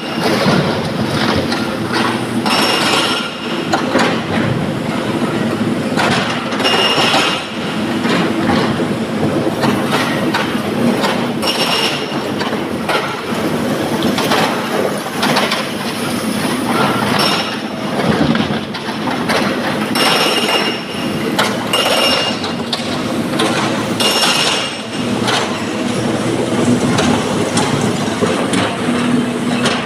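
Sany excavator working broken rock: its diesel engine and hydraulics run steadily while the steel bucket scrapes and grinds through the rock pile. Every few seconds a sharp metallic clang rings out as rock strikes steel.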